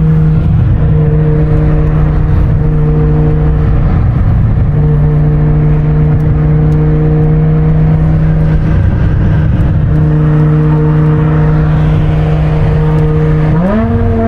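BMW E60 M5's 5.0-litre V10 with an Eisenmann aftermarket exhaust cruising at steady low revs, a constant drone heard from inside the cabin. Near the end the engine note rises sharply and holds at a higher pitch.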